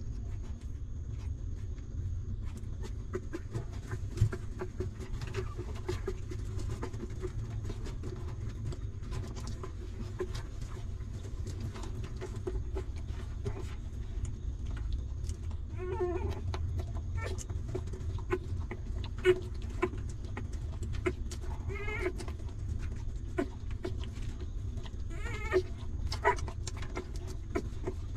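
Newborn puppies whimpering: a few short, wavering high squeals in the second half, among small clicks and rustles from nursing and nuzzling, over a steady low rumble.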